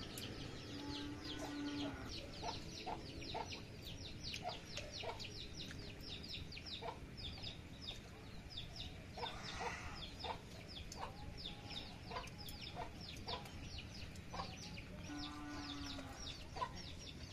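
Chickens clucking in short calls, with a drawn-out call about a second in and another near the end, over many quick high chirps that run on throughout.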